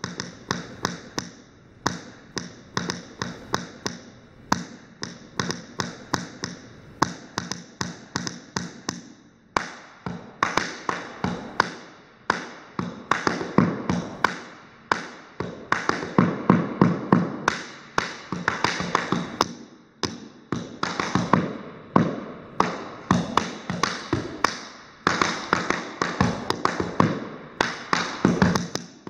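Tap shoes striking a wooden floor in an unaccompanied improvised tap dance: rapid clusters of sharp taps in changing rhythms, broken by brief pauses, growing denser and louder after about ten seconds.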